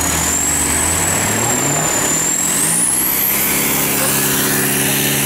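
Off-road 4x4 trial vehicle engines revving in a muddy water pit, the revs climbing about halfway through and then held high and steady. A thin high whine rises in pitch over the engine sound.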